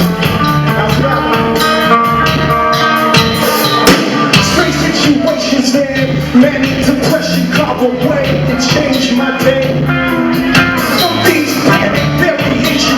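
Live band playing a rock-leaning song at concert volume: drums keeping a steady beat under guitar and bass.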